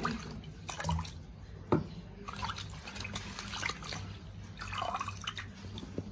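Cut broccoli pieces being rinsed by hand under a running kitchen tap, water splashing and dripping in uneven bursts, with one sharp knock a little under two seconds in.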